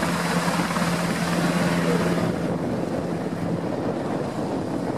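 Coastguard Sikorsky S-92 helicopter hovering: steady rotor and turbine noise with a held hum that fades about three and a half seconds in, mixed with wind on the microphone.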